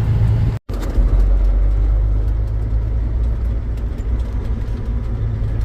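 Diesel semi truck engine running with a steady low rumble. The sound drops out completely for a moment about half a second in.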